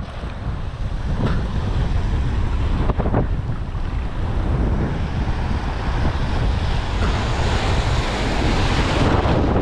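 Rough sea surf breaking and washing around, with strong wind buffeting the microphone in a heavy low rumble. The surf grows louder near the end as a wave breaks close by.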